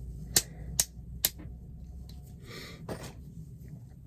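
Three sharp metallic clicks about half a second apart, then a couple of short scraping rustles, as a locksmith handles a euro lock cylinder at the bench. A low steady hum lies underneath.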